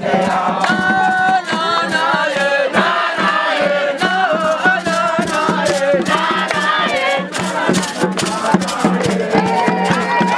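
Group of voices singing a chant together over frequent sharp percussive hits, with a steady low hum underneath.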